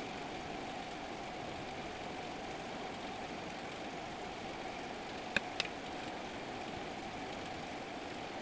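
Steady mechanical hum in the room, with two quick sharp clicks about five and a half seconds in.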